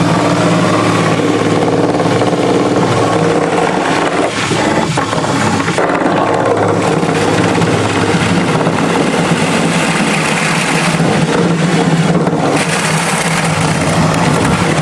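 Power drill running steadily under load, boring the drain-plug hole through the boat's hull.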